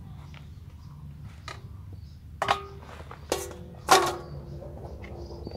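Stainless steel bowls clanking: three sharp metal knocks in the second half, each leaving a ringing tone, as a bowl is put down and handled. Before them, only faint handling sounds.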